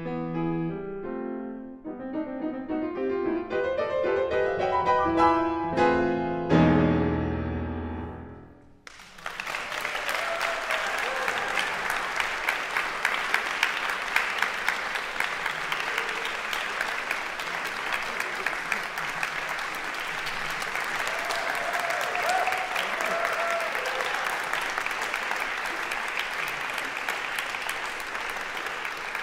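Grand piano playing the closing bars alone, ending on a low chord that rings and fades out. About nine seconds in, the audience starts applauding, and the applause carries on steadily.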